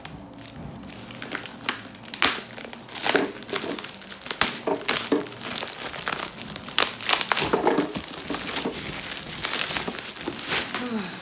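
Packaging being opened by hand: irregular crinkling and rustling of plastic wrap and cardboard as a blender's box is unpacked.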